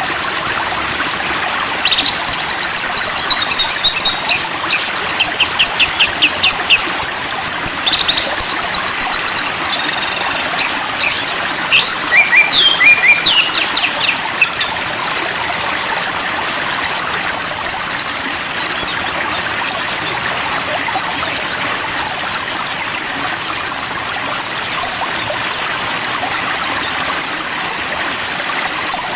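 Small birds chirping and singing in busy spells over a steady rush of flowing water, a nature-sound track for calming songbirds. The chirping thins out about halfway through and picks up again near the end.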